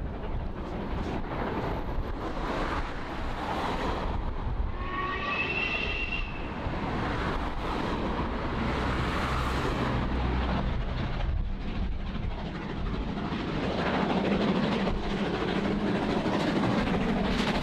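Steam locomotive working a passenger train toward the listener, its exhaust and the rumble of the train growing louder near the end. There is a short whistle about five seconds in.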